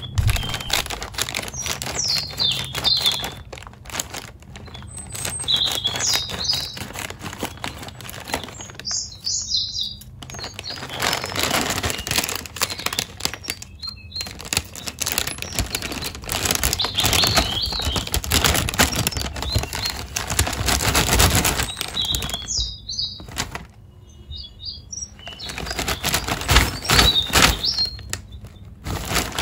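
A metallised plastic snack pouch (Haldiram's Soya Sticks) crinkling and rustling as it is cut with scissors and pulled open by hand, in uneven spells with short pauses. Short high chirps sound now and then over the crinkling.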